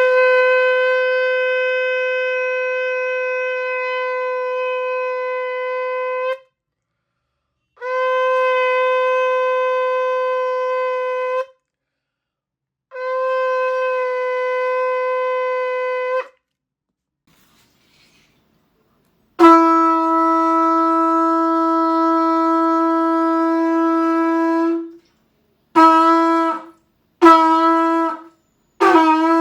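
Shofar blasts: one horn sounds three long, steady blasts of several seconds each, then after a short pause a lower-pitched shofar sounds one long blast followed by three short blasts near the end.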